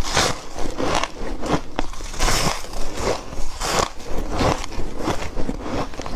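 Close-up biting and crunching of dry, flaky white ice, a crisp crunch about every half second to a second.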